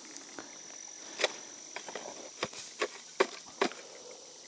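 A shovel striking and scraping into wet mud at a spring, about five sharp strikes, most of them in the second half. A steady high insect drone runs underneath.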